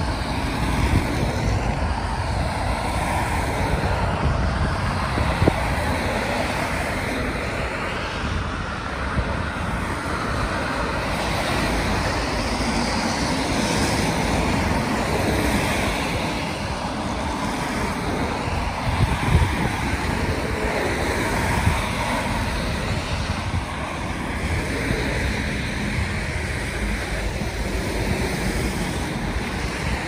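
Road traffic on a wet road: the tyres of passing cars hiss in slow swells, over a steady low rumble of wind on the microphone.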